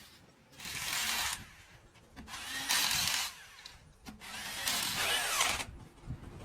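Three bursts of a hissing workshop power tool, each about a second long, with short pauses between them.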